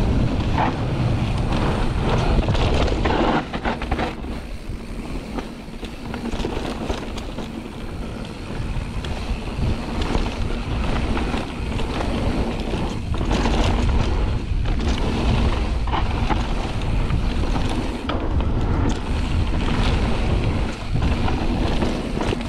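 Wind rushing over the camera microphone as a mountain bike descends a trail, with tyre noise and knocks and rattles of the bike over bumps. The rush eases for a few seconds about four seconds in, then picks up again.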